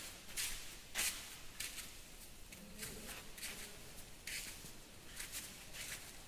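Footsteps scuffing and shuffling on gritty rock, an irregular run of short scrapes, with faint voices in the background about halfway through.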